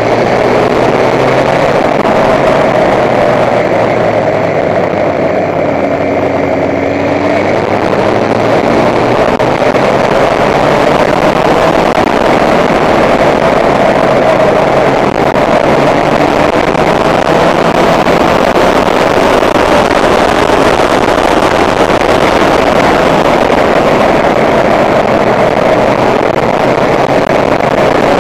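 Honda motorcycle engine running at steady road speed on the move, its engine note holding fairly even. Wind rushing over the microphone grows stronger after several seconds.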